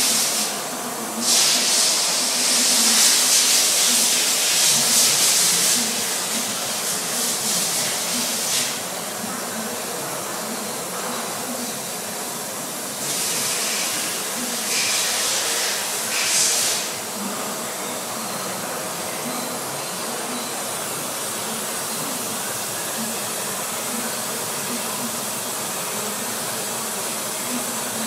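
Loud, high hissing in long bursts: one lasting most of the first eight seconds with a short break near the start, another in three short spurts in the middle, then only a steady background noise.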